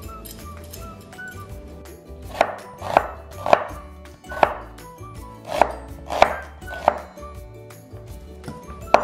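Chef's knife chopping an onion on a wooden cutting board: about eight sharp, uneven knocks of the blade striking the board, starting about two seconds in.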